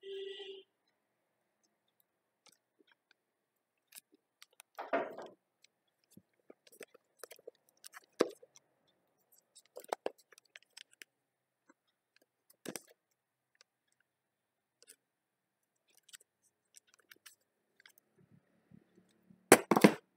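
Handling of a cardboard iPhone 11 retail box and its paper insert: scattered light taps, knocks and rustles at irregular intervals, with a cluster of louder knocks near the end as things are set down on the table.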